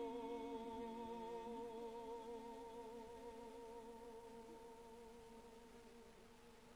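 Faint music: one long held note with a gently wavering pitch, slowly fading away.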